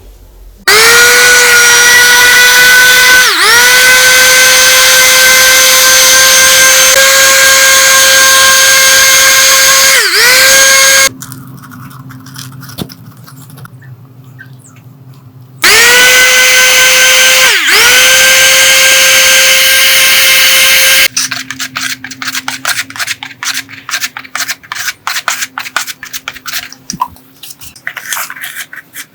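A high-speed electric power tool running with a steady high whine in two runs of several seconds each; its pitch sags briefly a few times as it bites into the work, then recovers. After it stops, a run of quick, irregular scraping and clicking.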